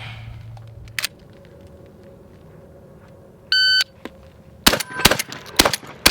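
A short electronic beep, then about a second later four quick shots from a Benelli M4 12-gauge semi-automatic shotgun, the last right at the end.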